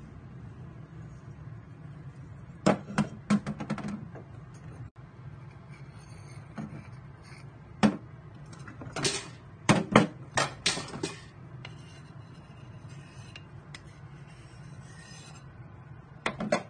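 Metal gas-stove burner caps and rings clinking and knocking as they are handled and set down on the stovetop. There are several short bursts of knocks, the loudest around ten seconds in, over a steady low hum.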